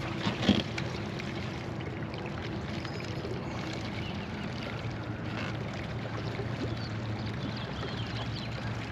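Boat motor running steadily with a low hum under a wash of background noise, and a brief knock about half a second in.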